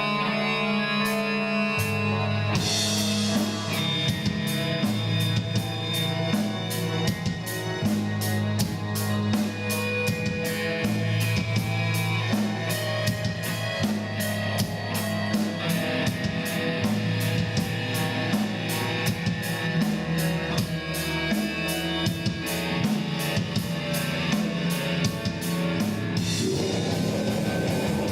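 Rock music: guitar over a bass line, with a drum kit coming in about two and a half seconds in and keeping a fast, steady beat.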